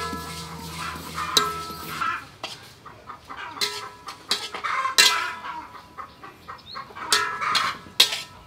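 Metal spatula scraping and knocking against a wok as seeds are stirred while dry-toasting, in irregular strokes. Chickens cluck in the background.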